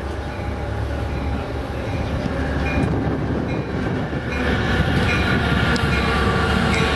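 A train rolling past on the tracks: a steady low rumble that grows louder about four seconds in, with a regular light clicking about twice a second.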